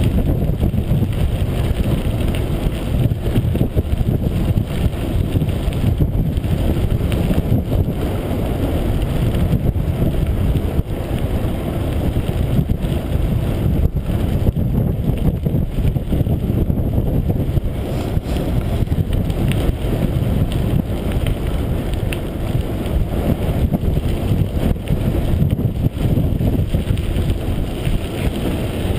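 Wind rumbling on the microphone of a camera riding along on a mountain bike, mixed with tyre noise on a dirt and gravel trail. Now and then there is a faint knock from a bump.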